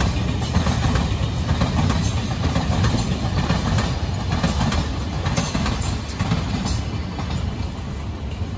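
Freight train of covered hopper wagons rolling past, a steady rumble of wheels on the rails with faint clicks, fading over the last few seconds as the end of the train goes by.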